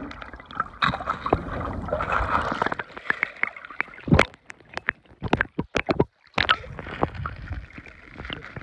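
Lake water moving against a camera microphone as it dips under and breaks the surface: muffled underwater gurgling and sloshing, with a run of sharp clicks and splashes in the middle as the camera comes up out of the water and goes back under.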